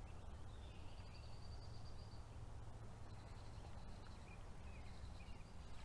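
Faint outdoor ambience by a pond: a steady low rumble with scattered short bird chirps. One high, steady note lasts about a second and a half near the start.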